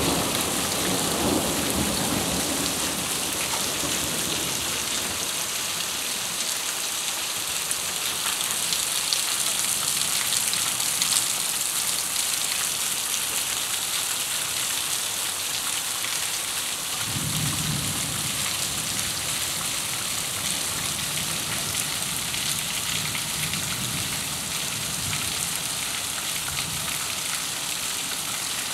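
Heavy rain pouring steadily onto a paved square, a constant hiss. The tail of a thunder rumble fades out at the start, and another low rumble of thunder comes in a little past halfway and dies away.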